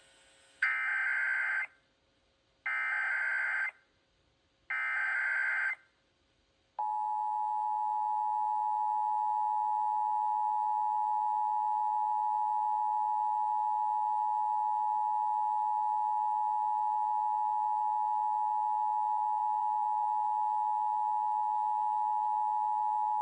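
Emergency Alert System SAME header: three one-second bursts of screeching digital data, about two seconds apart, then the EAS two-tone attention signal held steadily for about sixteen seconds. It is the opening of a Required Monthly Test broadcast over FM radio.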